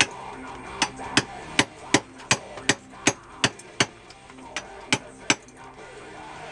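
Hand hammer driving a steel point chisel into marble while roughing out the block: sharp metallic strikes at two to three a second, with a short break about four seconds in, stopping about a second before the end.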